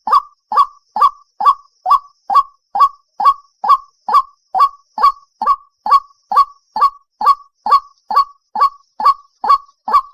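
White-breasted waterhen (dahuk) calling, one short note repeated steadily at about two calls a second.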